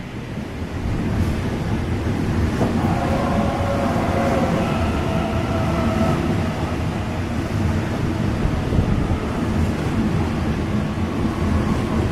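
Electric passenger train arriving alongside the platform: a low rumble of wheels on rails that swells in the first second and then holds steady. A high squeal made of several steady tones starts about two and a half seconds in and dies away about four seconds later.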